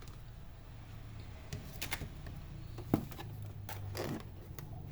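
Scattered light clicks and knocks from handling an all-in-one computer's plastic casing as it is laid down and worked on, the sharpest knock about three seconds in, over a low steady hum.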